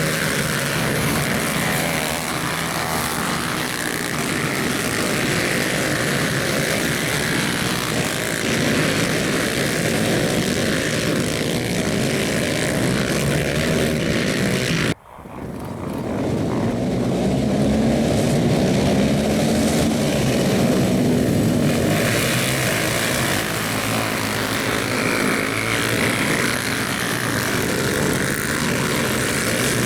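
Racing ATV engines running hard, rising and falling in pitch as the quads accelerate and back off. The sound cuts out abruptly about halfway, then comes straight back.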